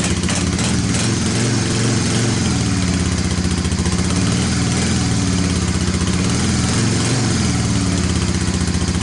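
1998 Honda FourTrax 300's air-cooled single-cylinder four-stroke engine idling steadily on choke, just after a cold start.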